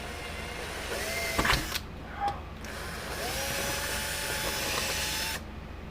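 Electric drill drilling out the rivets that hold a fence charger's transformer to its case, run in two bursts, a short one and then a longer one of about two and a half seconds.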